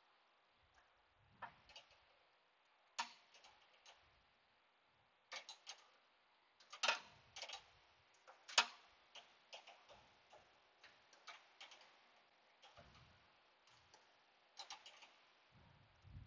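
Quiet, irregular metallic clicks of a 13 mm wrench working a nut tight, a few clicks every second or so, with the loudest ones in the middle.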